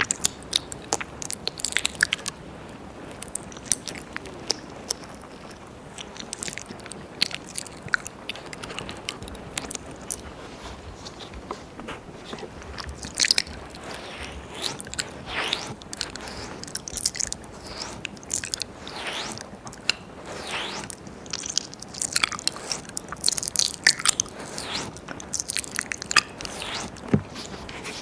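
Wet mouth sounds of ear licking close to a binaural microphone: tongue clicks, smacks and slurps at an uneven pace, busier in the second half.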